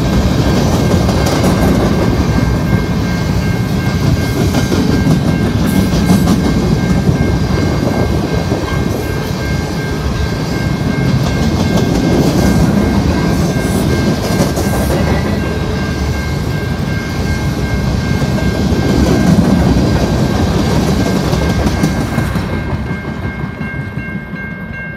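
Freight train's covered hopper cars rolling past: a steady rumble of steel wheels on rail with clacking over the rail joints and a steady high ringing tone. The rumble falls away near the end as the last car passes.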